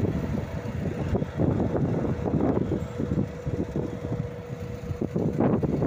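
Adtranz class 220 diesel locomotive hauling a flat wagon away, its engine and wheels rumbling steadily with a steady tone that drops out about five seconds in. Wind buffets the microphone near the end.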